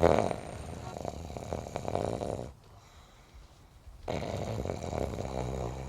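A man snoring: two long snores of about two seconds each, with a quiet gap of about a second and a half between them.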